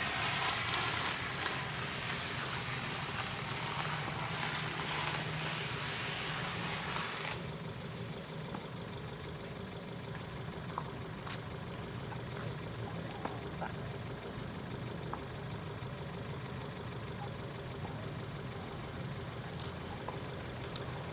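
Ford Fiesta engine idling steadily. A loud hiss sits over it and cuts off sharply about seven seconds in.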